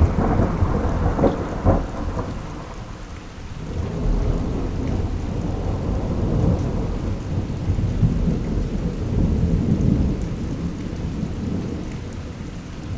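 Close thunder: a sudden crack with a few more sharp cracks in the first two seconds, then a long rolling rumble that slowly fades. Rain falls throughout.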